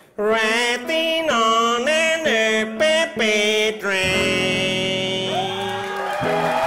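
A male voice sings the closing phrase of a cabaret song with acoustic guitar, in sliding, bending notes that end on a long held note. Audience applause starts to rise near the end.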